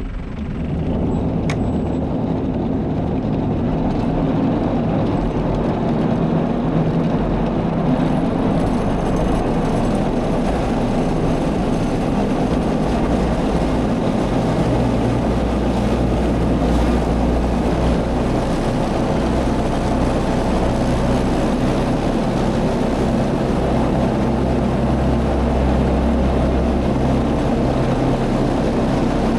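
Tractor engine running steadily while mowing, a continuous low drone that settles to an even level about a second in.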